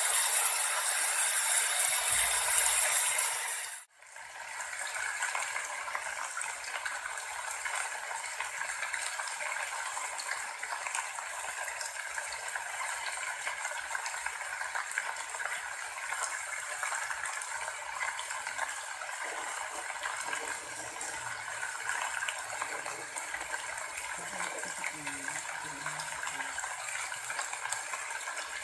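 Steady rain falling, an even hiss. A louder, brighter stretch breaks off about four seconds in, and a quieter, steady rain follows.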